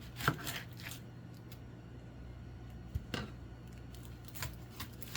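A few light knocks and clicks of things being handled in a kitchen, over a low steady hum.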